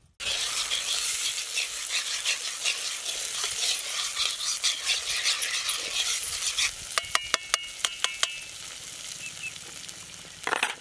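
Thick onion and dried-red-chilli paste sizzling in hot oil in an iron kadai while a metal spatula stirs and scrapes through it. About seven seconds in comes a quick run of sharp, ringing metal taps, the spatula knocked against the pan, and after that the sizzle goes on more quietly.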